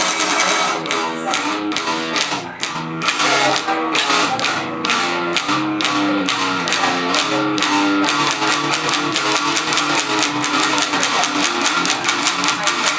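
Metal music: a guitar plays a stepping melodic line over a steady beat, and the beat gets faster and denser about eight seconds in.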